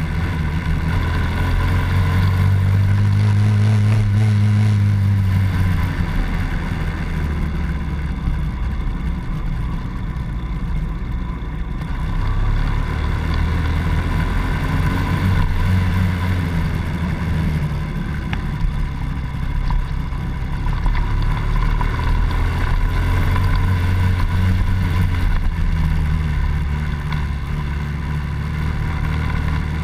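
Honda Dax 70cc's small single-cylinder four-stroke engine running under way, heard on board the moving bike. Its pitch rises and falls several times as the throttle opens and closes.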